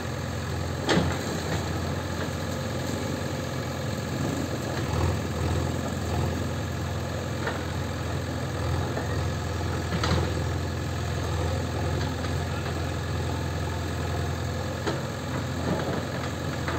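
JCB 3DX backhoe loader's four-cylinder diesel engine running steadily while its backhoe arm pushes at a mud wall. A few short knocks, the clearest about a second in and about ten seconds in, come from the bucket striking the wall and clay chunks falling.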